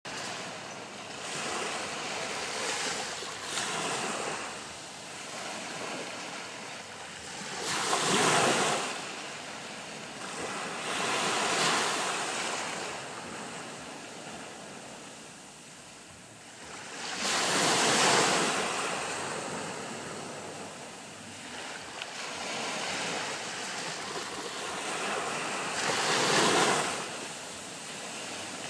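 Small waves on a calm sea washing up on a sandy beach: a hiss that swells and fades every few seconds as each wave breaks and runs up the sand, with four louder washes standing out.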